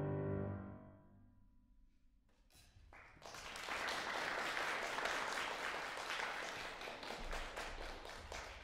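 Concert grand piano's final chord ringing out and dying away within the first second. After a short silence, audience applause breaks out about three seconds in and carries on, thinning toward the end.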